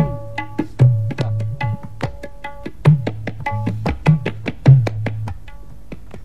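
Tabla solo in the ten-beat Jhaptaal cycle: quick, crisp ringing strokes on the dayan mixed with deep bass strokes on the bayan that slide down in pitch under the heel of the hand. The bass drops out near the end, leaving lighter strokes.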